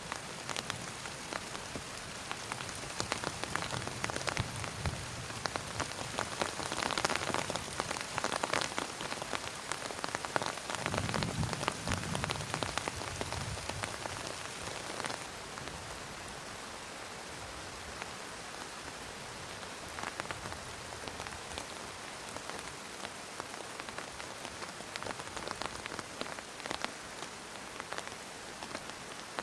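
Heavy rain falling steadily, with many separate drops tapping close by. It is heavier for about the first half, then eases to a steadier patter.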